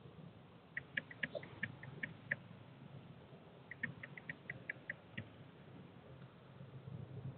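Fledgling northern cardinal begging at a seed feeder: two quick runs of short, high, squeaky chip notes, about five a second, each run lasting about a second and a half, over a faint low hum.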